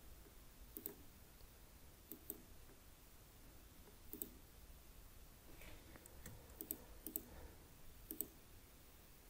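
Faint computer mouse-button clicks, scattered singly and in quick pairs, over near-silent room tone.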